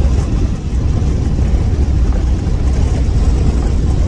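Steady low road and engine rumble inside the cabin of a van driving at highway speed.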